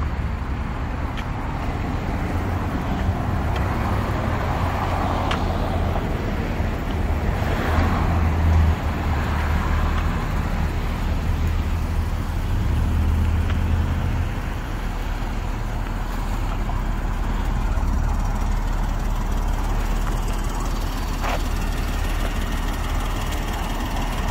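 Steady road traffic noise with a low engine hum that fades about halfway through.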